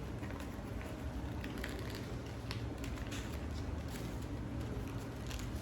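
A sheet of origami paper rustling and crinkling as it is creased and folded by hand, with scattered faint, short crackles over a steady low background hum.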